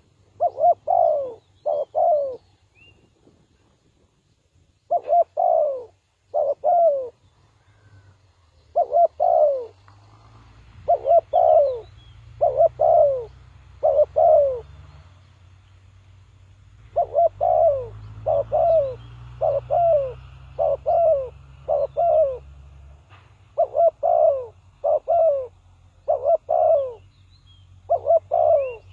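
Spotted dove cooing: short coo notes that fall in pitch, repeated in phrases with pauses of a second or more between them.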